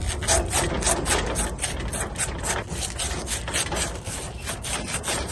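Abrasive being rubbed back and forth on the copper U-bend of an air-conditioner condenser coil, cleaning the corroded leak spot for brazing. Quick, even scraping strokes, several a second.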